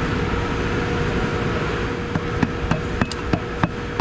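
Steady machinery hum with a constant tone, and in the second half about seven sharp metallic clicks as a metal pump-motor coupling flange is worked down onto the keyed motor shaft.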